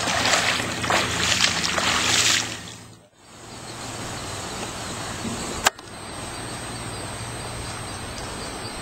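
Feet splashing and sloshing through shallow water as a person wades, fading out about two and a half seconds in. After that a steady outdoor noise of wind and water, broken once by a sharp click.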